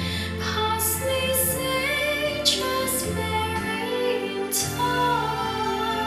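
Music with a woman singing over sustained bass notes, played back through B&W 804 D4 floor-standing loudspeakers driven by an Accuphase E-480 integrated amplifier and heard in the listening room.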